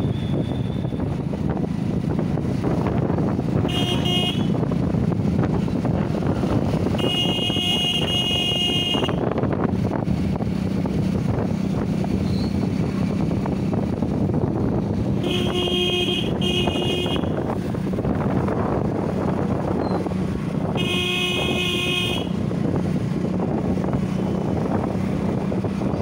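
A vehicle horn honking four times, two of the blasts lasting a second or two, over a steady low rumble.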